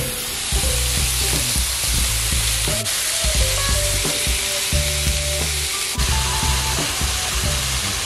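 Ground beef sizzling in a hot electric skillet, with a plastic spatula scraping the pan and breaking up the meat.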